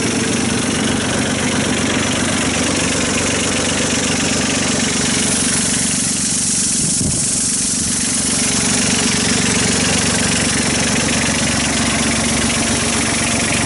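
Kubota B8200 compact tractor's diesel engine idling steadily.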